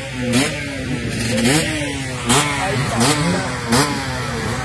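Enduro dirt bike engines revving in repeated throttle blips, their pitch jumping up and dropping back roughly every second, with more than one bike running at once.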